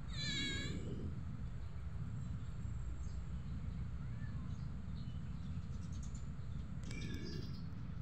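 Cat meowing twice: a short, high, wavering mew at the start and another about seven seconds in, over a steady low rumble.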